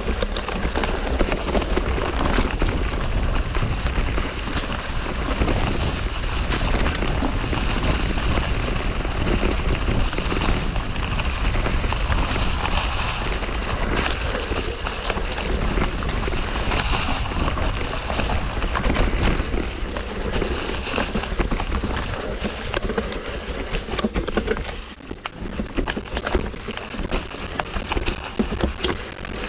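Mountain bike riding over a dry, leaf-covered dirt trail: a steady crackling hiss of tyres on leaves and dirt, with clicks and rattles from the bike and wind on the microphone. It eases for a couple of seconds about 25 seconds in.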